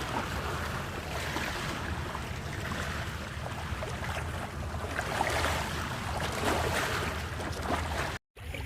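Wind rumbling on the microphone over the wash of sea surf, a steady noise with no clear events. The sound cuts out abruptly for a moment near the end.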